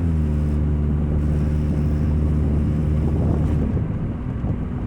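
2000 Nissan Altima's four-cylinder engine with a leaking exhaust, droning loudly as the car drives. The low, steady hum with overtones dips slightly in pitch at the start and turns into a rougher rumble near the end.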